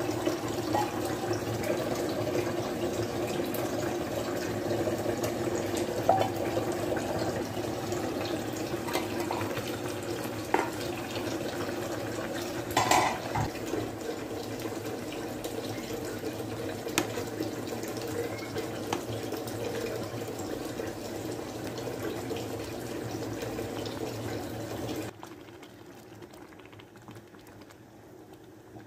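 Chopped apples boiling in a large metal pot, a steady bubbling broken by a few clinks of a metal spoon against the pot. About four seconds before the end the sound drops to a much quieter simmer as the fruit has cooked down to a thick puree.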